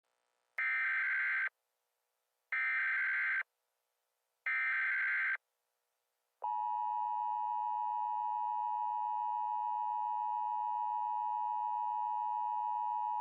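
Emergency Alert System tones: three short buzzing data bursts of the SAME header, about a second each and a second apart. Then, about six seconds in, the steady two-tone EAS attention signal begins and holds.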